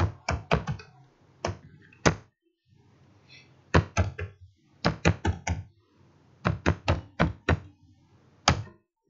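Computer keyboard keys being typed: about twenty sharp clicks in short irregular bursts with pauses between them, and a single keystroke near the end.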